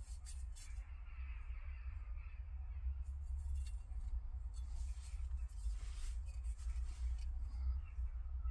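Faint rustling from handling over a low steady rumble, with the rustling strongest briefly near the start and again about five to six seconds in.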